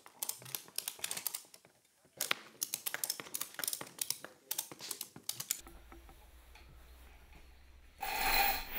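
Ratchet-strap buckles being cranked tight by hand, several at once, giving quick irregular clicking for about five seconds. Near the end a louder, continuous rasping rattle follows from a manual chain hoist being hauled.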